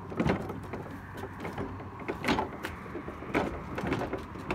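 Caster wheels of a wooden cart rolling across wooden deck boards under an 80-pound planer, a steady rumble broken by sharp knocks as the wheels cross the board gaps, the loudest about a quarter second in and just past two seconds.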